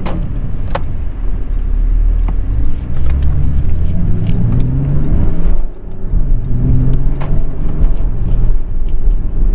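Porsche engine accelerating under way, its pitch climbing, with a brief drop about halfway through as a gear is changed, then climbing again.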